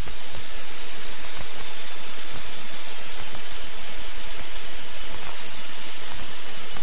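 Steady, loud, even hiss like static on the aircraft's radio and intercom audio feed, heard between transmissions.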